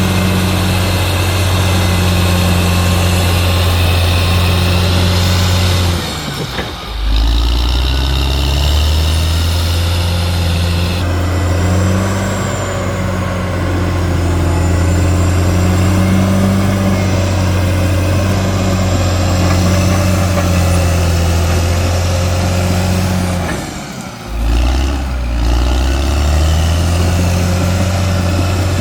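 Caterpillar D6R XL bulldozer working, its diesel engine running steadily under load. Twice the engine briefly eases off and then picks up again.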